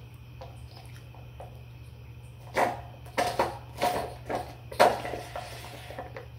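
Someone slurping a thick cookies and cream milkshake off a spoon: a run of about six loud, wet slurps in quick succession, starting a little past halfway and dying away near the end, after a few faint clicks of the spoon against the plastic cup.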